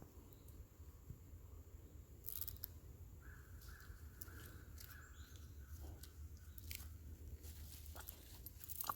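Faint footsteps crunching on dry fallen leaves over a low wind rumble on the microphone, with a faint steady high tone from about three to seven seconds in; the sound cuts off abruptly at the very end.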